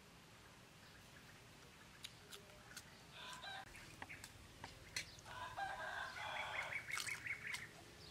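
A chicken clucking in runs of short, rapid calls, louder from about five seconds in, over scattered small clicks and smacks of someone chewing.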